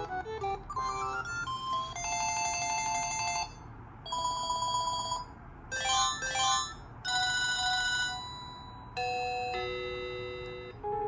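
Panasonic KX-TG9541 cordless phone previewing its ringer tones one after another: several short electronic ring melodies, trills and beeping rings, each lasting a second or two before the next one starts.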